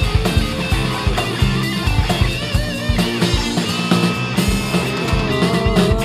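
Rock band playing an instrumental passage live: drum kit keeping a steady beat under bass guitar and electric and acoustic guitars, with a wavering high lead line over them.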